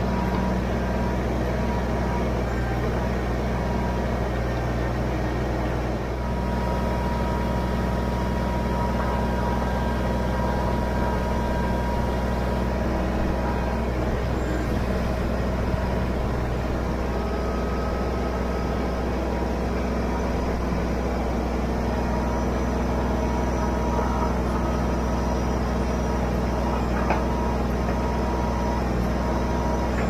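Kubota BX23S compact tractor's three-cylinder diesel engine running steadily under load as its backhoe digs out a tree stump.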